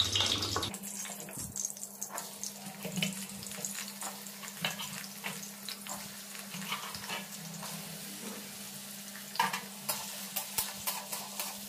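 Cut potatoes going into hot oil in a steel kadhai and frying with a soft sizzle, while a metal spatula scrapes and taps against the pan as they are stirred. A few louder scrapes come near the end, over a steady low hum.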